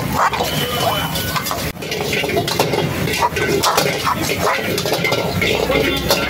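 Steel ladle scraping and clanking against an iron wok in quick, repeated strokes as egg, onions and rice are stir-fried, with the food sizzling in the hot pan.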